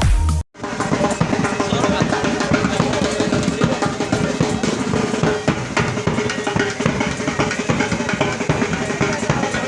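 Music with busy, rapid drumming, starting after a brief break about half a second in.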